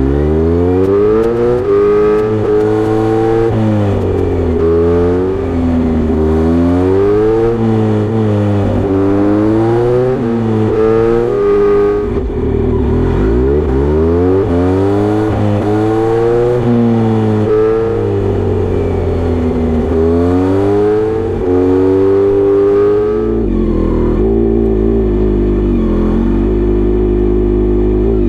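Kawasaki Z900RS inline-four engine through a Misty Kintaro short-pipe exhaust with a 70 mm silencer, revved up and falling back again and again, then dropping to a steady idle about 23 seconds in.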